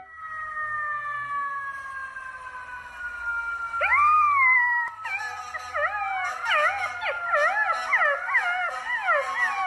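Golden retriever puppy howling, head thrown back: one rising-then-falling howl about four seconds in, then a run of short wavering howls. Underneath, a long held note slowly falls in pitch.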